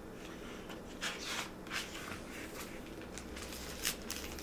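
A few short, soft rustles from a hardcover picture book being handled and swung partly shut, over a low steady room hum.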